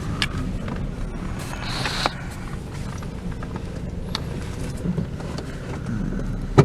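Car running: a steady low engine and road hum with a few light clicks and rattles.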